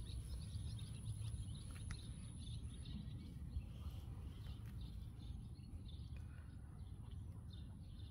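Quiet outdoor ambience: faint bird chirps over a steady low rumble, with a thin high steady tone that stops about three seconds in.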